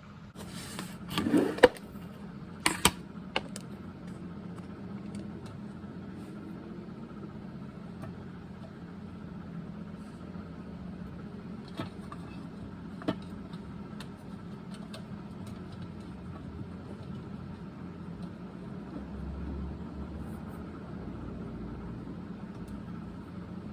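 A steady low mechanical hum runs throughout, with a cluster of sharp knocks and rustles in the first few seconds and a couple of single clicks about halfway through, typical of a bird feeder and its seed being handled.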